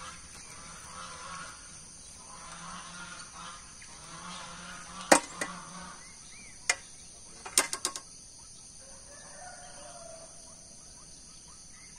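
A few sharp clicks and knocks from a fishing rod and reel being handled and propped in a metal chair: one loud click about five seconds in, then a quick cluster a couple of seconds later. Under them runs a steady high insect drone, with faint chickens in the background.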